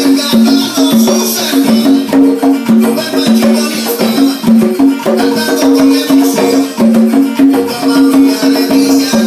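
A pair of congas played by hand in a steady, busy rhythm, the open tones of the two drums ringing at two different pitches.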